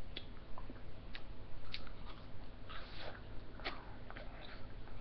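Ice lolly being bitten and chewed: a string of short, irregular crunches and mouth clicks.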